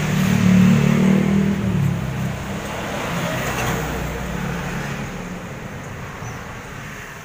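A motor vehicle engine running loudly for the first couple of seconds, then steady traffic-like noise that slowly fades away.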